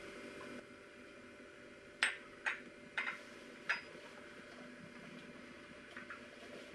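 Ceramic coffee cup clinking against its saucer: four sharp clinks about two to four seconds in, then a couple of faint ones near the end, over a steady low room hum.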